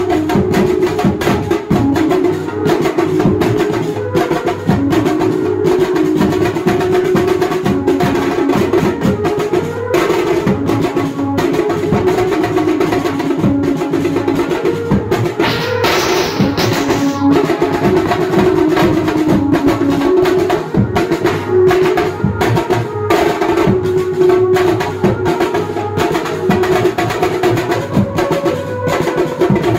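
Banjo-party band music: a fast melody line played over dense, driving drumming, with a short burst of noise about halfway through.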